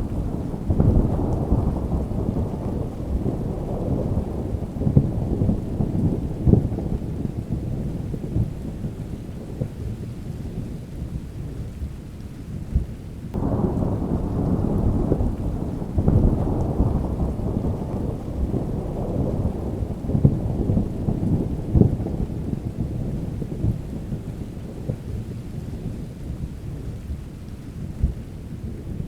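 Rain falling with rolling thunder: a long low rumble fading away over the first half, then a new thunderclap breaks about halfway through and rolls on, slowly dying down.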